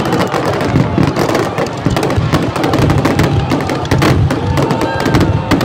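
Aerial firework shells bursting in a rapid, overlapping barrage: a dense run of bangs and crackles with hardly a gap, over a continuous low rumble.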